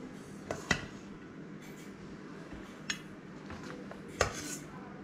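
A few light clinks of a metal serving spoon and dishes while rice is served onto a ceramic plate, four or five short taps spread over the few seconds.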